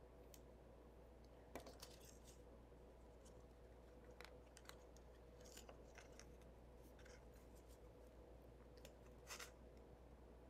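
Faint, scattered snips and clicks of small craft scissors and of handling twine and paper tags, about a dozen short sounds spread over several seconds against quiet room hum.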